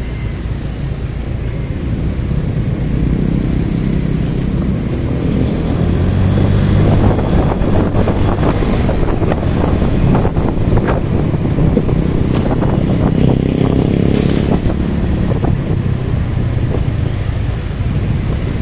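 Steady motorcycle engine running while riding in traffic, with wind noise on the microphone and other scooters and cars around it. It grows louder over the first several seconds.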